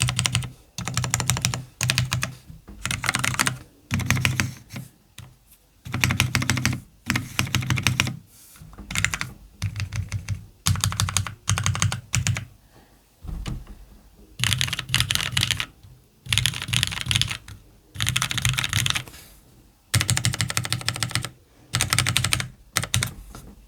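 Typing on a CannonKeys Devastating TKL mechanical keyboard with Cherry MX Black linear switches in an FR4 plate and JTK keycaps: quick runs of keystrokes in bursts about a second long, with short pauses between them.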